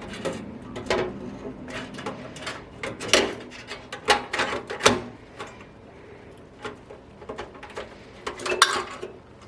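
Irregular clicks and knocks as a motherboard is pushed and wiggled into a PC case against the metal IO shield, with a quieter spell in the middle.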